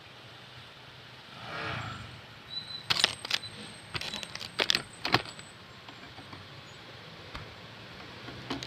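Motorcycles idling in stopped street traffic at a stoplight, a low steady hum, with a brief swell of sound about a second and a half in. Between about 3 and 5 seconds comes a run of sharp clicks and rattles.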